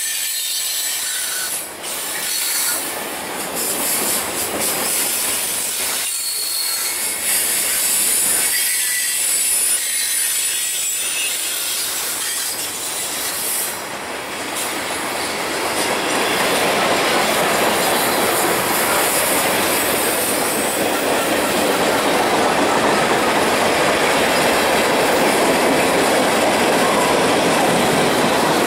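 Freight train cars, mostly tank cars, rolling past: a continuous rumble and clatter of steel wheels on rail, with a high thin wheel squeal in the first half. It grows louder from about halfway in.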